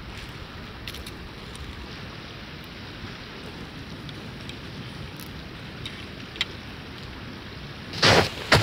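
Steady low outdoor wind noise with a few faint clicks; near the end, a couple of loud footsteps in snow come right up to the microphone.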